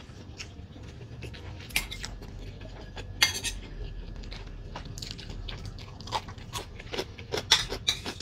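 Close-miked eating sounds: chopsticks and a ceramic soup spoon clinking against a soup bowl at irregular moments, with a sharp clink about three seconds in and a cluster near the end, and soft chewing in between.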